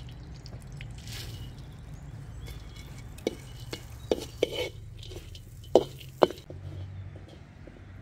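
A metal ladle stirring rice in a wok, scraping and knocking sharply against the pan several times, loudest in the second half, over a steady low hum.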